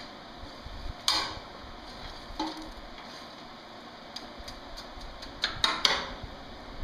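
Metal fire poker scraping and clinking against the coal and metal firepot of a coal forge as the fire is stirred. Sharp clinks come about a second in and at about two and a half seconds, with several close together near the end.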